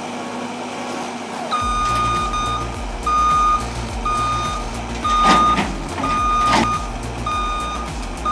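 Heavy machine's reversing alarm beeping about once a second over a low engine rumble, starting about a second and a half in. Two loud knocks come midway.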